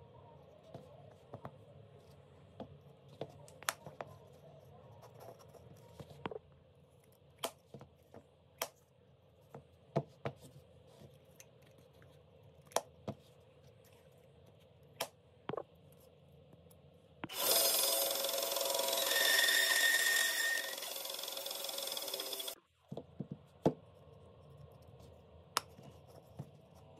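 Small hinged wooden boxes cut from log slices being handled: the wooden lids click and knock shut, with scattered sharp taps of wood on wood. About seventeen seconds in, a loud rushing noise runs for about five seconds and cuts off suddenly.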